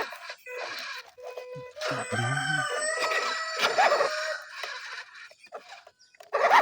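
A rooster crowing once, a long drawn-out call starting about two seconds in.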